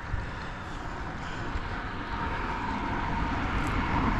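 Road traffic on the bridge: a passing vehicle's engine and tyre noise growing steadily louder as it approaches.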